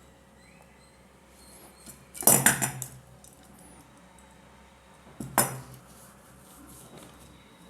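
Small hard parts and a tool clattering together while a three-pin plug top is being fitted to a cable: two short bursts of clinking, the first about two seconds in and louder and longer, the second about five seconds in.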